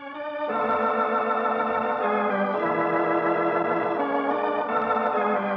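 Organ music: sustained full chords that shift to a new chord every couple of seconds, a musical bridge opening the second act of a radio drama.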